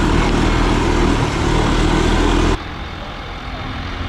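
Off-road vehicle engine running under load, with a loud rushing hiss over it. About two and a half seconds in, the sound cuts off abruptly to a quieter, steadier engine hum.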